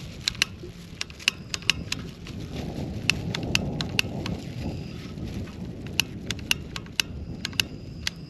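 A lighter clicking again and again, irregular sharp clicks about two or three a second, as it tries to light a propane camping stove burner. Wind rumbles on the microphone and swells in the middle.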